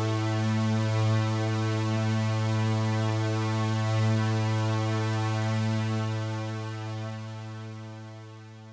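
Synthesizer holding one low drone note with many overtones, steady, then fading out over the last few seconds.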